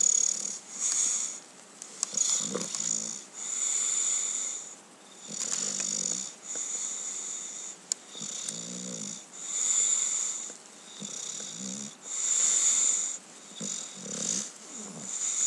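English bulldog snoring in its sleep. A low, rattling snore comes about every three seconds, five times in all, alternating with a high, hissing wheeze.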